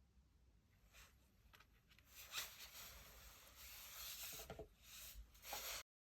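Faint rubbing and sliding of tarot cards being handled and mixed, getting louder about two seconds in and cutting off abruptly near the end.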